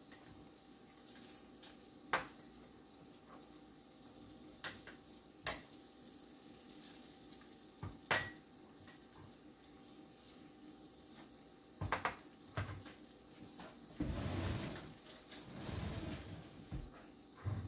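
Metal utensils clinking sharply against dishes several times, ringing briefly, over a faint steady sizzle of beef slices frying in a cast iron skillet. Near the end a louder rush of scraping noise lasts about two seconds.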